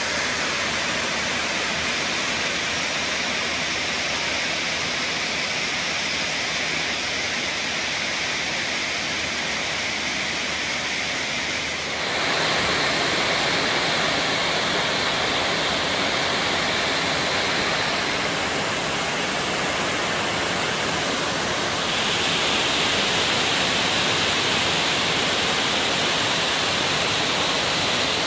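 Iron ore pellets pouring down steel ore-dock chutes into a ship's cargo hold during loading, a continuous rushing hiss like a waterfall. It gets a little louder and brighter about twelve seconds in.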